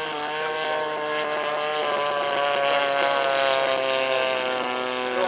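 The 30cc gas engine of a radio-controlled Extra 260 model plane drones steadily in flight. It grows louder toward the middle and its pitch sags slightly.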